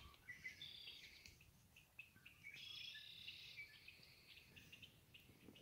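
Faint songbirds singing: two spells of trilling song, about half a second and two and a half seconds in, with scattered short chirps between.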